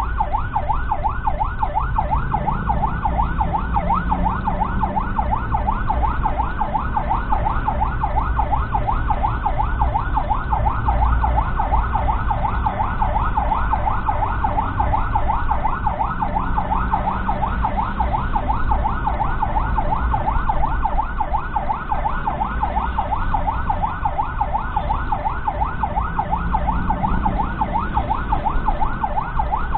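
Ambulance's electronic siren in a fast yelp, its pitch sweeping up and down about four times a second without a break, heard from inside the ambulance's cab over the low rumble of its engine and the road.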